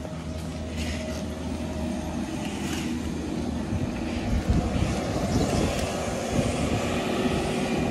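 A steady, low engine drone that grows louder over the second half.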